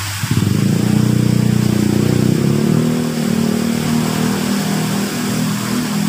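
A motor vehicle's engine comes in suddenly about a third of a second in and runs loud at a fairly steady pitch, dipping slightly a couple of seconds later. Under it is the steady rush of a small rock waterfall splashing into a pond.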